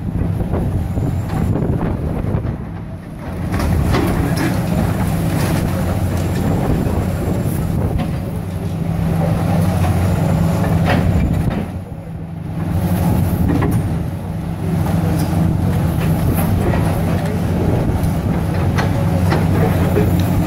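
Diesel engines of high-reach demolition excavators running steadily under load, with scattered cracks and clatter of concrete and brickwork being crushed and falling. The engine note dips briefly twice.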